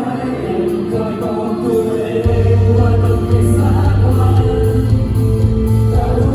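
Live pop ballad, voices singing over a band; the bass and fuller accompaniment come in about two seconds in and the music gets louder.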